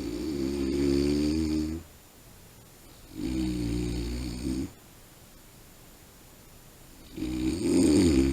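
A man snoring in his sleep: three loud snores at an even pace, each lasting one and a half to two seconds, with quiet gaps between them.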